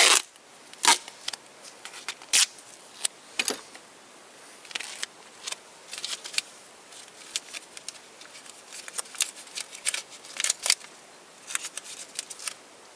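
Silver duct tape being pulled off the roll and torn, then pressed and wrapped around a car's wiring-harness connector: an irregular string of sharp rips and crackles, with plastic loom and cables rustling under the hands.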